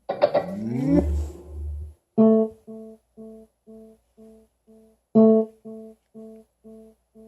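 JBL Flip 4 Bluetooth speaker's boot-up sound: a guitar-like strummed chord sweeping upward with a deep bass thump. It is followed by a string of short tones about twice a second that fade and start over about three seconds later, the speaker's Bluetooth pairing tone.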